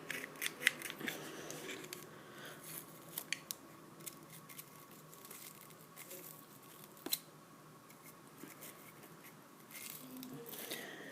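Faint, irregular scratching and light metallic clicks of a Zippo lighter's metal chimney and insert being scrubbed and handled during cleaning.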